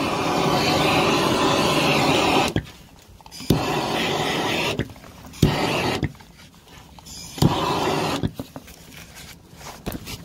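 Handheld gas blowtorch firing in about four blasts of loud hissing flame, each starting with a sharp click, with the last one short. The flame is heating a frozen truck disc brake to thaw it.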